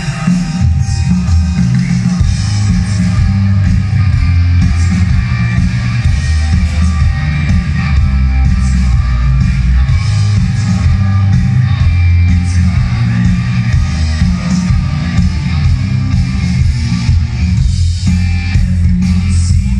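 A live rock band playing loudly, with electric guitar, drums and bass, heard from among the audience with the bass booming heavily.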